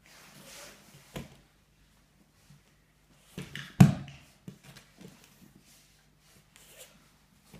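Grapplers shifting their bodies on a foam mat: rustling of clothing and skin against the mat, a small knock about a second in, and a sharp slap or thump, the loudest sound, near the middle. A faint steady hum underneath.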